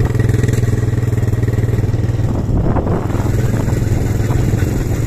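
ATV quad bike engine running at a steady speed, heard from the rider's seat. About two and a half seconds in the sound shifts and the engine's low hum weakens.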